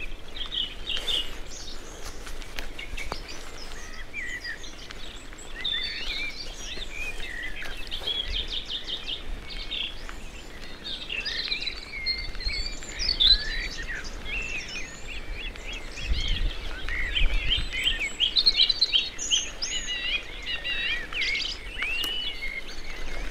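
Many songbirds singing at once: overlapping chirps, whistles and rapid trills, over a low rumble that swells about two-thirds of the way through.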